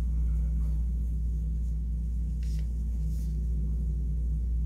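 Steady low hum, with a few faint light clicks from knitting needles and yarn being handled.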